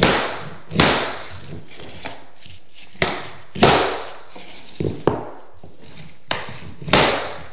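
Claw hammer striking a tapping block against the edge of a luxury vinyl plank to lock its click joint. A handful of sharp knocks, each ringing briefly, with lighter taps between.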